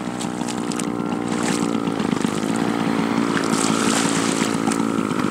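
Motorboat engine running steadily, its pitch dipping briefly about two seconds in.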